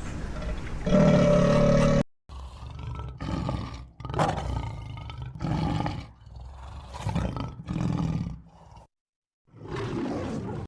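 A large animal giving a series of loud, rough calls, one every second or two, cut off abruptly twice by edits.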